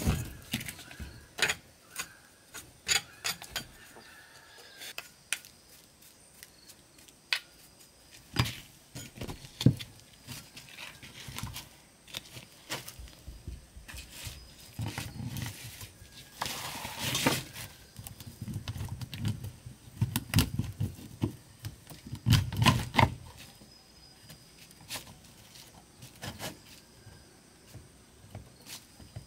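Hand-tool repair work: scattered sharp taps and knocks, a rasping scrape lasting about a second near the middle, and a few dull thumps in the second half.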